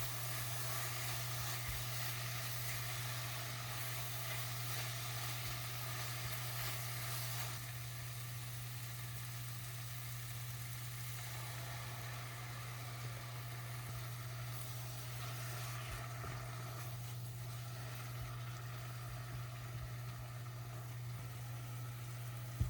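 Food sizzling and crackling in a hot frying pan, with a steady low hum underneath.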